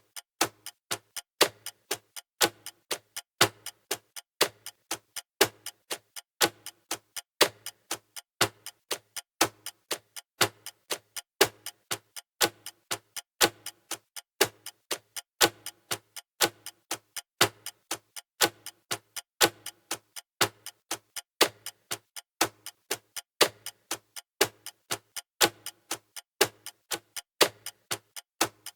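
Mechanical clock ticking, a steady, even run of sharp ticks.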